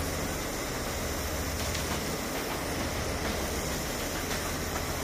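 Steady low engine rumble under an even hiss, like a vehicle engine running.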